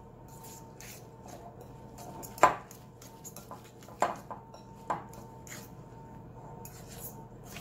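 A metal utensil stirring crumbly dough in a glass mixing bowl, scraping and knocking against the glass, with three sharper knocks, the loudest about two and a half seconds in.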